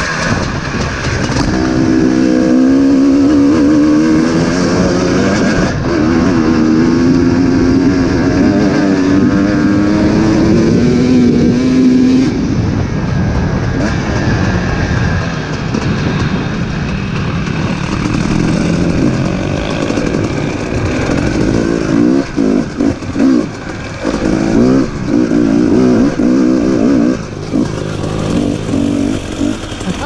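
Dirt bike engine heard from on board, accelerating with its pitch climbing and dropping back twice as it shifts up through the gears, then running steadier, with the throttle chopped on and off several times near the end.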